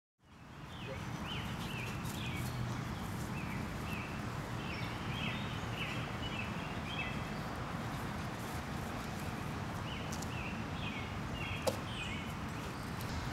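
Outdoor ambience: a steady low rumbling hiss with repeated short, high chirps scattered through it, and one sharp click just before the end.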